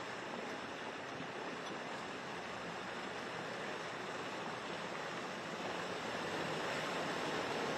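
A Ford pickup truck driving through deep muddy floodwater, its bow wave of mud and water rushing and splashing, growing louder about two-thirds of the way through as the truck comes closer.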